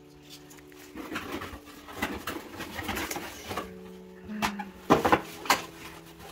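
Soft background music with long held notes, over irregular knocks and rustling from a massage chair's cardboard and plastic packaging being handled. The loudest sharp knocks come about five seconds in.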